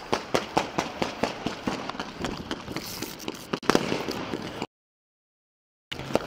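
Rapid gunfire: a long string of shots, several a second, for about four and a half seconds. Then the sound cuts out completely for about a second.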